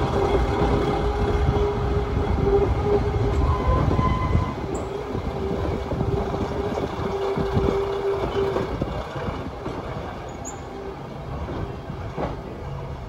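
Class 122 and Class 116 first-generation diesel multiple units pulling away, their diesel engines running with a low rumble and a steady whine. The whine stops about two-thirds of the way through, and the sound fades as the train draws off.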